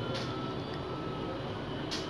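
Plastic bottle being scrubbed with a bottle brush: two short scratchy swishes about a second and a half apart, over a steady low rumble.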